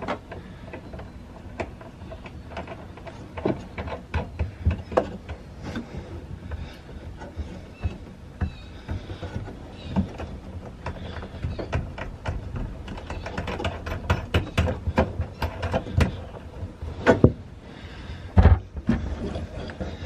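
Irregular clicks and knocks of a heavy battery cable's ring lug being fitted onto a battery kill-switch post, with the nut spun on by hand and the stiff cable knocking against the sheet-metal panel. The knocks come more often in the second half, and the loudest are near the end.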